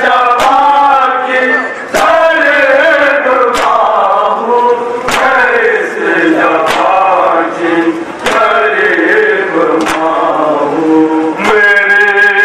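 Young men chanting an Urdu noha, a Shia mourning lament, into microphones, with a sharp beat keeping time about every second and a half.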